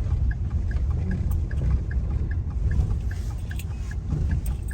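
Steady low rumble of a vehicle driving along, heard from inside the cabin, with a faint high tick repeating about two and a half times a second.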